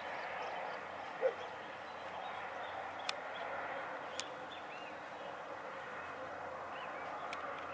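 Outdoor ambience: a steady background hiss with faint bird chirps. There is one short low call about a second in, and three sharp clicks later on.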